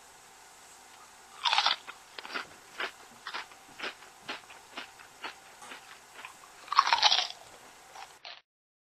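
Crunching sound effect for a peanut being cracked open: a loud crunch, a run of short sharp crunches about two a second, then another loud crunch before the sound cuts off.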